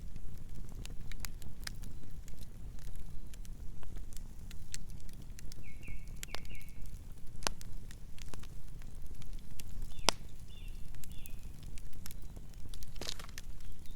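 Campfire burning with frequent sharp, irregular crackles and pops over a steady low rumble. Two brief clusters of short high chirps come through, about six seconds in and again around ten seconds.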